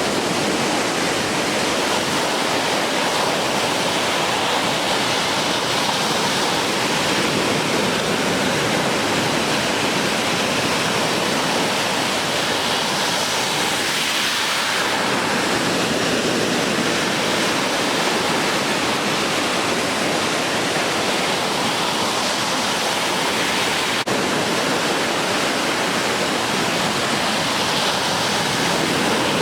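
Ocean surf breaking continuously at a river mouth: a steady, dense rush of waves that swells and eases gently, with a brief click about 24 seconds in.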